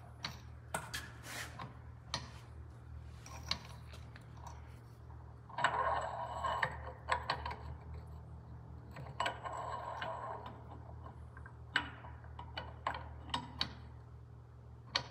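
Steel blower drive shaft on a Detroit Diesel 8V92TA being shaken and turned to start its spline into the blower drive: irregular metallic clicks and clinks, with two longer rattling stretches about six and ten seconds in. A steady low hum runs underneath.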